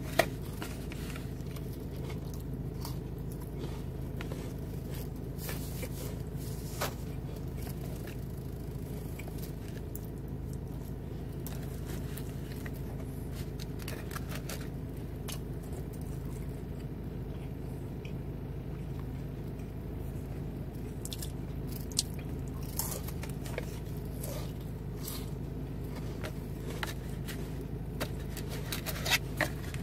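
A person eating crackers close to the microphone: soft chewing with a few sharp crunches, spread out and bunched toward the end, over a steady low hum.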